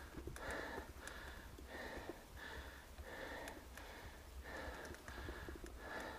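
A cyclist breathing hard and fast under heavy effort, with about two rhythmic breaths a second, over a low steady rumble.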